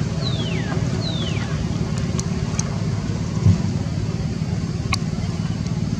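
Steady low background rumble, with two quick falling whistles in the first second and a half and a brief low thump about midway.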